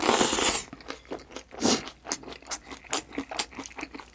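A person slurping a mouthful of chewy jjolmyeon noodles, a short loud hiss at the start and again briefly near the middle, then chewing with mouth noises as a quick run of wet clicks.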